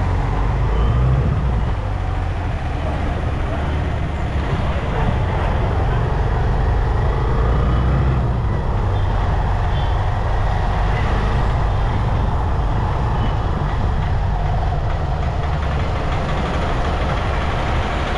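A motorbike's engine running steadily at road speed, a constant low rumble with road noise.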